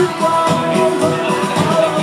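Pop song being performed: band accompaniment with a singer's held, bending melody line over it.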